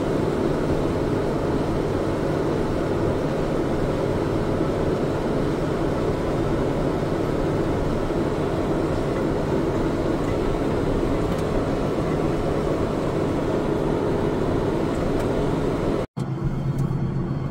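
Heavy farm machinery running with a steady, even drone. About 16 s in it cuts abruptly to a different, lower steady engine drone.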